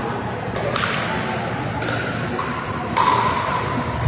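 Sharp pops of pickleball paddles striking the hard plastic ball, three hits about a second apart with the last the loudest, echoing in a large sports hall over a steady background of hall noise.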